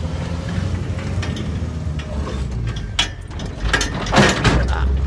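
Clicking and rattling over a low steady rumble, with louder bursts of clatter about three seconds in and again near four seconds in.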